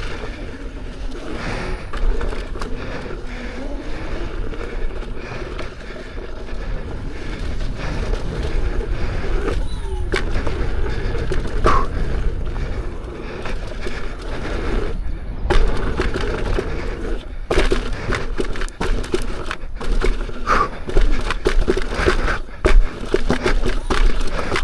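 Lynx electric unicycle's tyre rolling and rattling over a rocky off-road trail, with a run of sharp knocks from rock hits, heavier in the second half.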